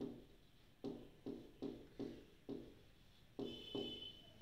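Marker pen writing on a whiteboard: a run of short taps as the strokes go down, about two a second, with a brief high squeak about three and a half seconds in.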